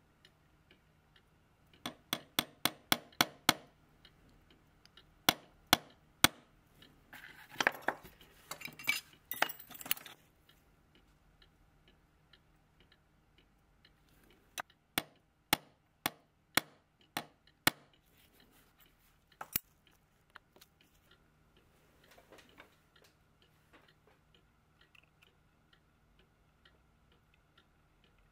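Light, sharp metallic clicks and clinks from small brass clock wheels and steel tweezers being handled, in several short runs, some of them evenly spaced two to four a second. About seven seconds in there is a few seconds of rustling and clinking.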